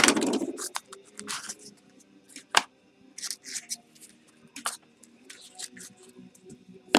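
Small cardboard trading-card box being handled and opened by hand: scattered scrapes, taps and rustles of card stock, with a knock right at the start.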